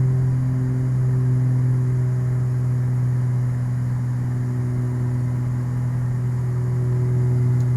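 Twin piston engines and propellers of a Beechcraft G58 Baron at climb power just after takeoff, a steady low drone heard inside the cabin.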